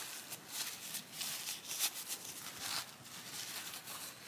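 Paper towel crinkling and rustling in irregular short strokes as a small steel rifle part is rubbed clean of contact cleaner inside it.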